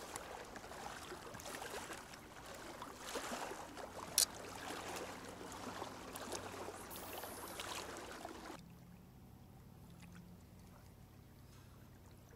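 Small waves lapping against a rocky lakeshore, with one sharp click about four seconds in. About eight and a half seconds in the sound drops away suddenly, leaving a faint low hum.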